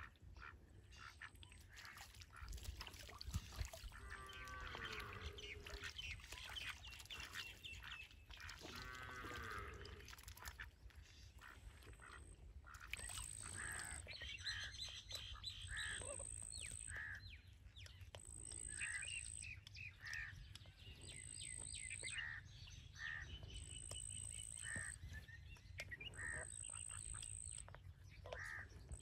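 Ducks quacking faintly a few times, with another bird calling in short notes about once a second in the background.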